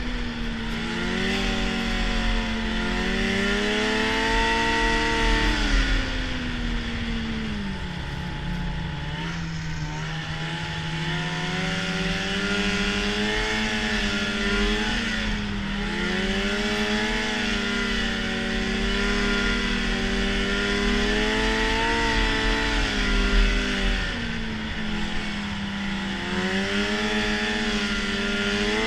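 Arctic Cat snowmobile running at speed, its engine pitch climbing and dropping back several times as the throttle is worked.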